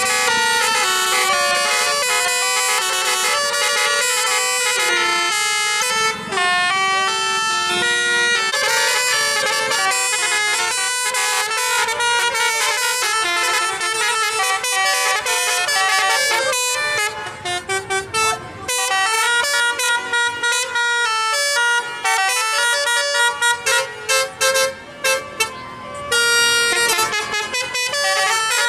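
A tour bus's telolet basuri musical air horn playing a fast tune of stepped notes. About two-thirds of the way through, the notes turn into short choppy toots with brief gaps, then run on together again near the end.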